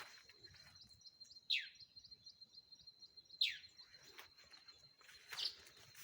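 A bird calling: three short chirps about two seconds apart, each sweeping sharply down in pitch. A steady thin high tone runs underneath, with a faint run of small ticks in the middle.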